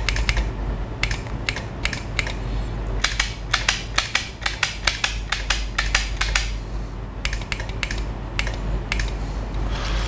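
Wall light switches pressed on and off again and again, each press clicking along with the relay controller switching the lamp: a busy run of sharp, irregular clicks over a low steady hum.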